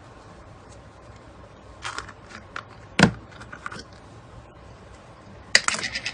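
Slime being squeezed and poked: scattered wet clicks, a sharp pop about three seconds in, then a quick run of crackling near the end.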